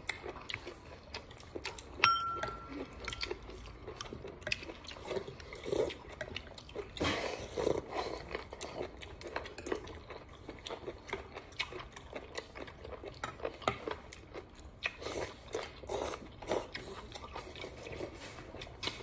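A man chewing a mouthful of fish noodle soup, with a metal spoon and chopsticks clicking against a ceramic bowl. One sharp clink about two seconds in rings briefly.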